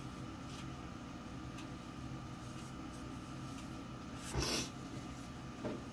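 Charcoal facial wipe rubbing over the skin of the face: faint scratchy strokes over a steady background hum, with one louder, brief swish about four seconds in and a smaller one near the end.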